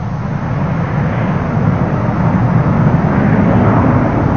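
Panavia Tornado's twin RB199 turbofans in full afterburner on the takeoff roll, a loud jet rumble growing louder as the aircraft lifts off.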